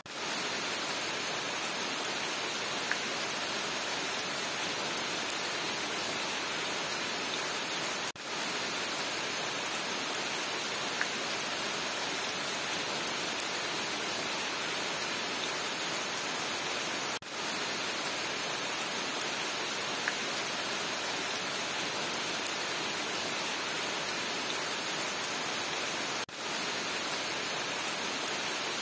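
Steady rain, an even hiss with a few faint drop ticks, dipping briefly about every nine seconds.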